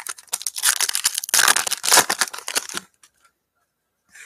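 Crinkly wrapper of a trading card pack being torn open and crumpled, a dense crackling that stops suddenly about three seconds in.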